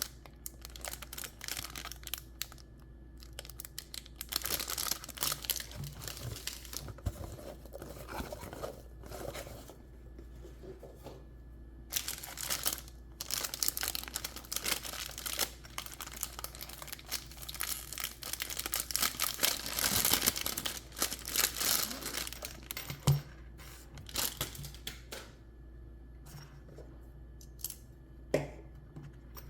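Packaging being torn open and crumpled by hand in irregular rustling bursts, with a couple of sharp knocks in the second half.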